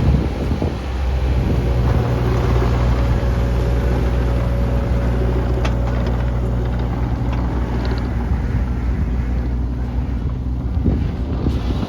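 Mini excavator's diesel engine running steadily as it works, spreading crushed stone, with a sharp click about halfway through.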